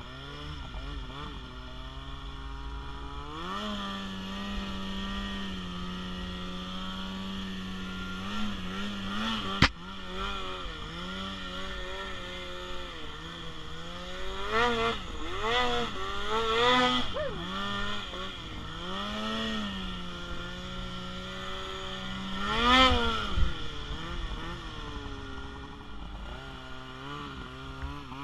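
Snowmobile engine revving up and down while the sled is ridden through deep powder, with a run of quick throttle blips in the middle and the strongest rev a few seconds before the end. One sharp click about ten seconds in.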